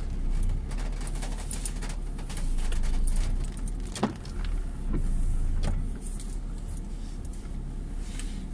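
Car engine running at low speed as the car rolls slowly out of a parking area, heard from inside the cabin as a steady low hum, with scattered clicks and crackles and one sharper click about four seconds in.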